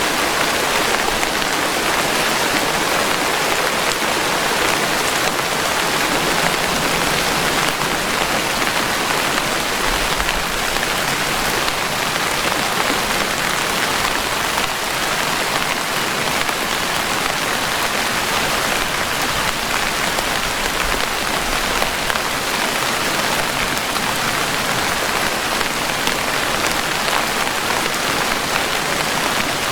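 Steady rain, an even hiss of falling drops that holds at the same strength throughout, with no thunder.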